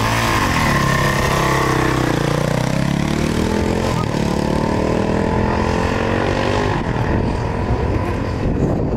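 Honda single-cylinder four-stroke dirt bike accelerating away under hard throttle, its engine pitch climbing and dropping with each gear change, a little fainter near the end as it rides off.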